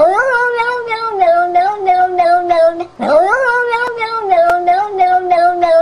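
Long-haired cat yowling: two long calls, each rising in pitch at the start and then held for nearly three seconds.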